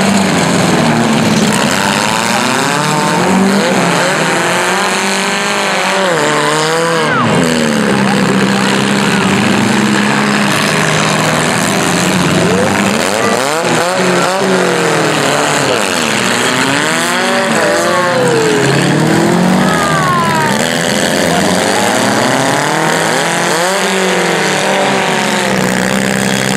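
Several compact demolition derby cars' engines revving hard at once, their pitch repeatedly rising and falling as the cars accelerate and back off, over a steady lower engine drone.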